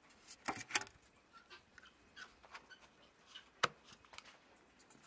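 Small plastic lids being handled and pressed onto plastic cups: a cluster of sharp plastic clicks near the start, one loud snap about three and a half seconds in, and light tapping and ticking between.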